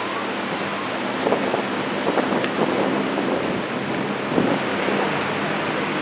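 Small surf breaking and washing up a sandy beach in a steady rush, with a few brief louder moments in the middle and some wind on the microphone.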